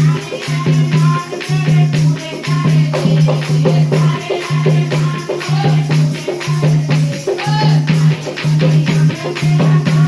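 Devotional bhajan music: a melody line over shaker-like rattle percussion with quick strokes and a low note repeating about one and a half times a second.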